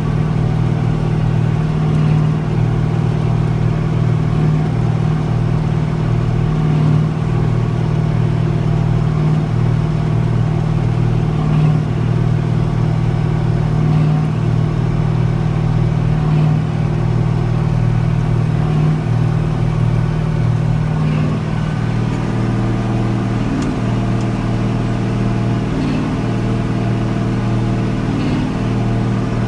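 Massey Ferguson 4840 articulated tractor's Cummins V8 diesel running steadily under load, with a regular swell about every two seconds. About two-thirds of the way through, the engine note drops a little lower and quieter.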